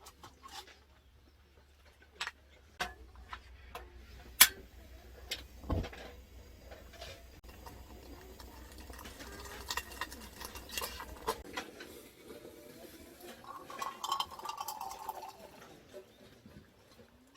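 Camp cookware and utensils being handled: light clinks and knocks at irregular intervals, the sharpest about four seconds in.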